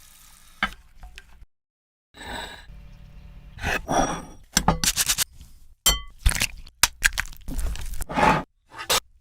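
Kitchen utensils and dishes being handled: a quick run of sharp clinks, knocks and scrapes, broken by a short silence about one and a half seconds in.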